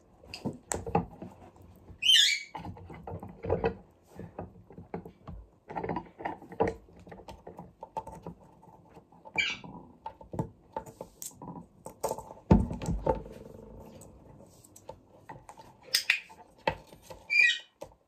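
Alexandrine parakeet giving short, high, wavering chirps four times, among scattered clicks and knocks of a plastic ball and toy basketball hoop being handled on a wooden table. A heavier thump comes about two-thirds of the way through.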